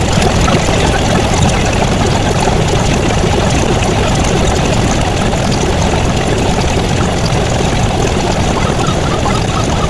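A loud, steady, dense wash of noise from many sound effects piled on at once, with no single sound standing out.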